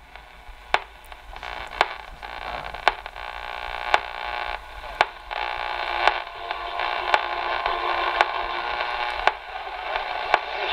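Channel Master 6506 transistor radio hissing with AM static from its small speaker as it is tuned between stations, the hiss slowly growing louder. A sharp click cuts through it about once a second.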